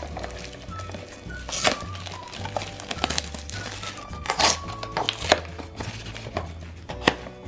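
Cardboard blind box being torn open by hand and its paper insert crinkled: a few sharp tearing and rustling strokes, the loudest about 1.7 and 4.5 seconds in, over steady background music.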